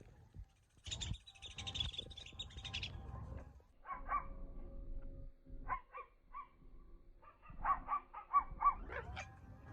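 Birds calling: a rapid, high chattering about a second in that lasts about two seconds, then scattered lower calls, and a quick run of about five calls near the end.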